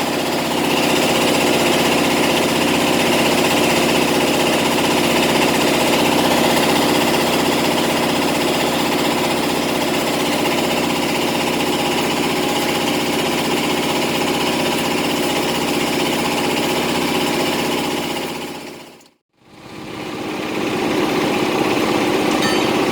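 Heavy diesel engine running steadily at an even speed. It fades out briefly near the end and comes back.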